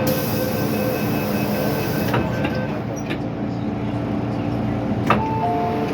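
MTR M-Train electric multiple unit heard from aboard: steady rumble and hum with a few held tones. A high hiss fills the first two seconds, and sharp clicks come about two seconds in and again, loudest, about five seconds in.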